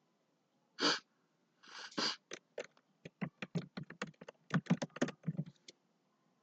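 A quick sniff or breath close to the microphone, then a second, longer one, followed by a fast, irregular run of about twenty sharp clicks on a computer keyboard and mouse, stopping a little before the end.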